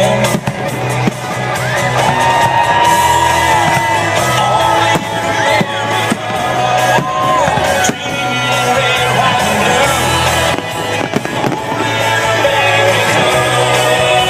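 Music with a sung melody and a steady low beat, with fireworks going off over it as many sharp bangs and crackles.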